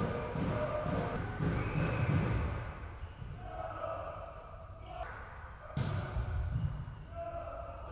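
Volleyball match sounds in a sports hall: thuds of the ball being played, players calling out, and one sharp hit about six seconds in, as an attack meets the block at the net.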